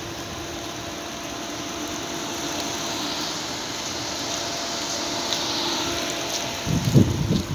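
Steady mechanical hum and hiss of air-conditioning units running. Near the end come a few low rumbling thumps of handling noise as the phone is swung.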